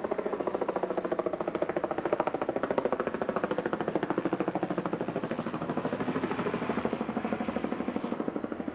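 A steady machine drone with a fast, even throb.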